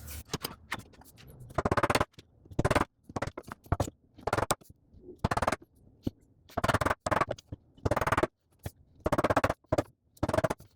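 A chisel working dovetail waste out of a board: short scraping, rapidly clicking strokes at about one a second, with silence between.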